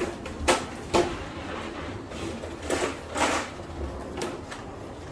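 Handling noises: two sharp knocks about half a second apart, then two short scuffs a couple of seconds later.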